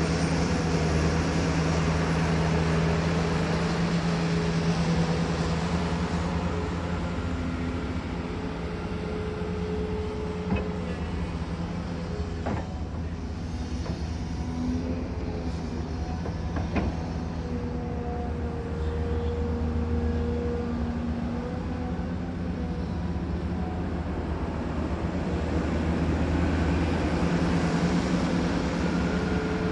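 Diesel engine of heavy construction machinery running steadily, its level rising and falling a little as the work load changes, with a few sharp knocks midway.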